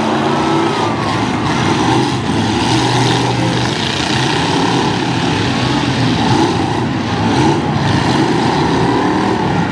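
Several demolition derby pickup trucks' and SUVs' engines revving at once: a loud, steady mass of engine noise with pitches rising and falling as drivers push and back off.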